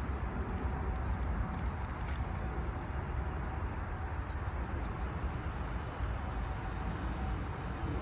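Steady low wind rumble on the microphone, with light scattered rattling and clicks.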